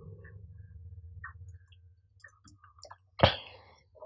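Faint handling clicks over a low hum, then one sharp knock about three seconds in that rings briefly.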